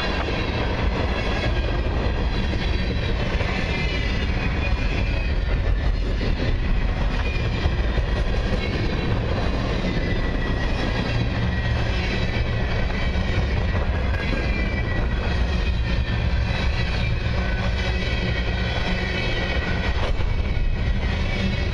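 Covered hopper cars of a long freight train rolling past at track side, steel wheels rumbling steadily on the rails with a faint high whine from the wheels.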